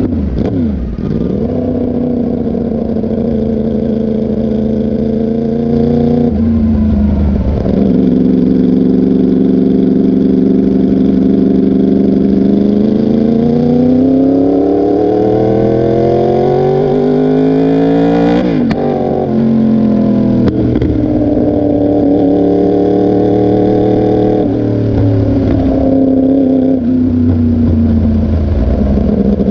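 2019 Yamaha R1 crossplane inline-four running loud through an SC Project CRT titanium exhaust, its engine speed holding for stretches, then climbing for about six seconds and dropping sharply about two-thirds of the way through.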